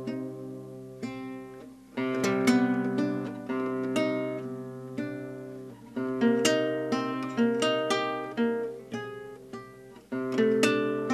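Acoustic guitar playing an instrumental passage of a song with no singing: a chord is struck about every four seconds and left to ring and fade, with picked notes in between.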